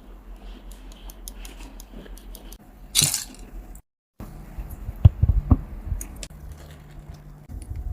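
Small plastic clicks and rattles of mechanical-keyboard keycaps being handled, with a short hissing scrape about three seconds in and a few dull thumps a little after the middle.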